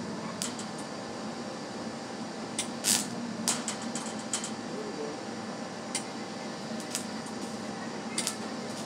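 Electric welding arc striking on a steel go-kart frame in short, separate crackles that bunch together near the end, over a steady hum.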